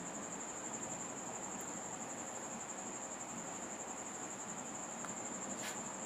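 Faint steady hiss with one constant high-pitched whine, and a single faint click near the end.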